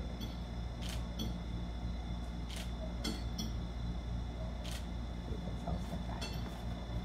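Camera shutter firing several times at irregular intervals, a sharp click each time, over a steady low hum.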